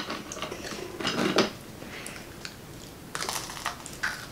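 A few short handling sounds and crunches as a candy corn sugar cookie is lifted off a plate and bitten into.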